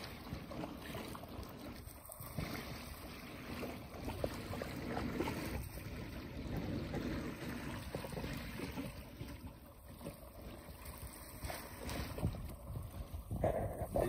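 Small sea waves lapping and splashing, with wind on the microphone.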